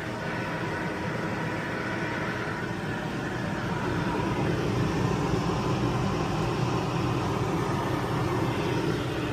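RV rooftop air conditioner running steadily with its compressor and fan at full load, a continuous hum and whoosh that grows a little louder about four seconds in.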